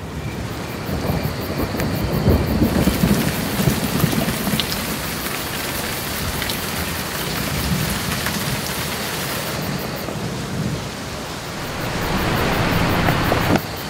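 Heavy rain falling with rolling thunder, the low rumble swelling a couple of seconds in and again near the end.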